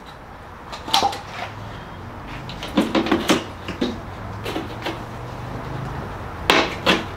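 Plastic gable vent being handled and set into the cut hole in a trailer door panel: a few separate knocks and short plastic clatters, with a louder cluster near the end.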